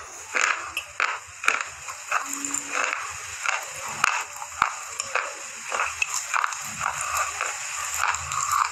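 Close mouth sounds of chewing a thick, dry slate pencil: a steady run of irregular, gritty crunches and small clicks as it is ground between the teeth.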